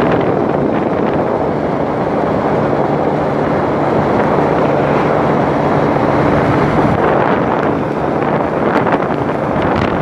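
Wind buffeting the microphone: a loud, continuous rushing noise, with a faint low steady hum underneath for a few seconds in the middle.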